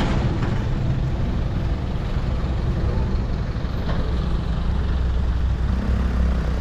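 Road traffic: motor vehicle engines running with a steady hum under general street noise, the low hum growing heavier about two-thirds of the way through.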